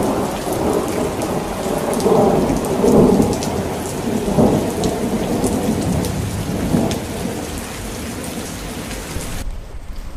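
Thunderstorm: steady heavy rain with rolling thunder, swelling loudest about two and three seconds in and again near four and a half seconds. Near the end the rain hiss cuts off suddenly, leaving a low rumble.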